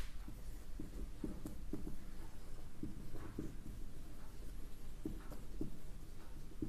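Faint, irregular taps and scrapes of handwriting, a pen or marker being written with, in a small room.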